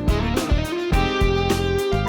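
Background music: an upbeat guitar track with a steady beat.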